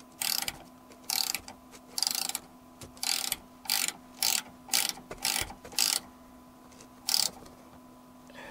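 Ratcheting box-end wrench clicking in short bursts as it tightens a bolt: about ten back-strokes in seven seconds, unevenly spaced.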